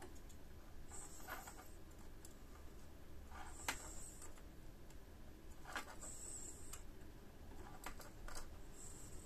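Hand soldering on a kit circuit board: faint small clicks and taps of the iron and solder against the pins, with short soft hisses about every two to three seconds as joints are made.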